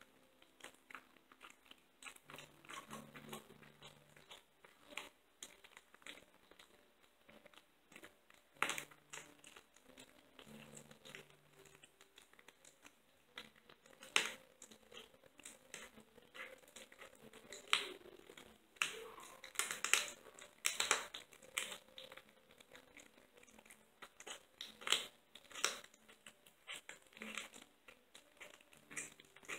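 A kitten eating raw meat from a bowl: wet chewing, licking and crunching with irregular sharp clicks of teeth, busiest about two-thirds of the way through.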